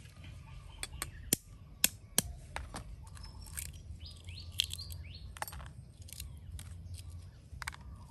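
Sharp taps and small clicks of an eggshell being cracked with a kitchen knife and picked apart by fingers. The two loudest taps come a little over a second in and just under two seconds in. Birds chirp faintly in the background around the middle.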